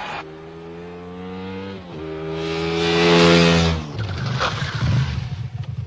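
Engine-like low drone sound effect: a steady hum, then a second hum that swells loud with a rising hiss, breaking into a fast fluttering rumble about four seconds in.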